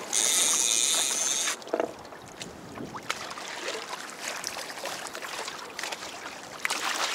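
A fishing reel being wound in, a steady high whirring for about the first second and a half, then it stops and water laps and splashes against the kayak's hull.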